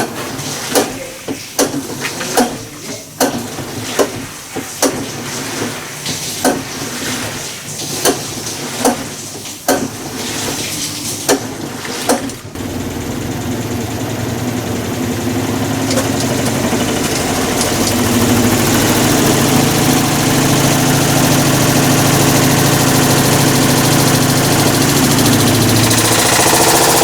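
Hitachi Beat Wash BW-D8KV washing machine with a failed clutch making its abnormal noise: loud clacking knocks about every 0.8 seconds, then about halfway through a harsh, steady grinding roar starts abruptly and builds louder. The clutch failure is put down to overloading the drum.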